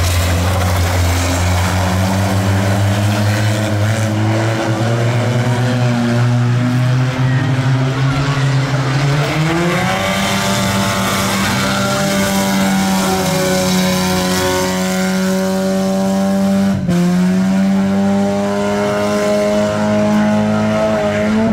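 Banger racing cars' engines running hard on the track, one engine dominant with a steady drone that rises in pitch about halfway through and then holds high as it is driven flat out.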